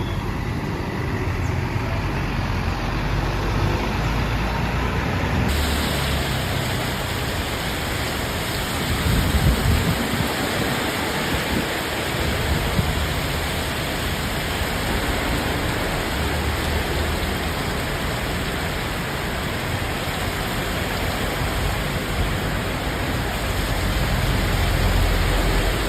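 Rain and wet-road traffic noise: a steady hiss over low engine rumble, swelling as a vehicle passes about nine seconds in. No horn sounds.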